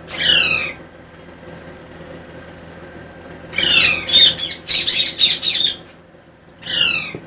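Caged birds squawking: a harsh falling call at the start, a rapid run of squawks in the middle, and one more near the end.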